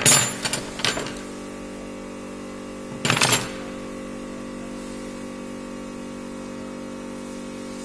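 Metal hand tools clicking and clattering on a wooden table, several sharp clicks in the first second and a louder clatter about three seconds in, over a steady hum.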